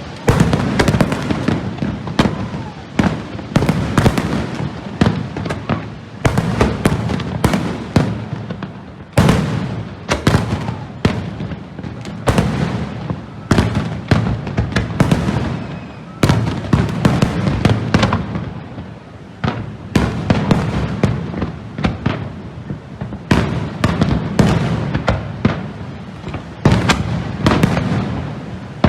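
Fireworks display: a continuous barrage of aerial shell bursts, many sharp bangs following one another closely over a constant rumble and crackle.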